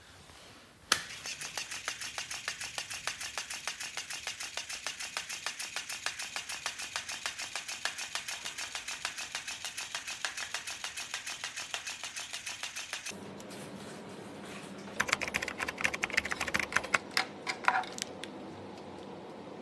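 Electric flopping-fish cat toy flapping its tail against a wooden floor: after a sharp click about a second in, a fast, even tapping at about five taps a second. About two-thirds of the way through the regular tapping stops, and near the end there are a few seconds of irregular, louder clicks and taps.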